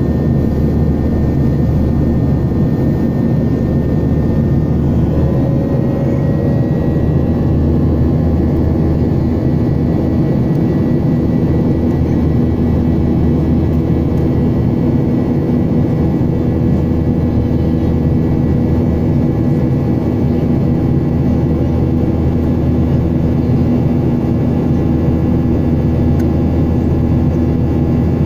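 Jet airliner's turbofan engines heard inside the cabin during the climb: a steady, even drone with a few steady humming tones on top.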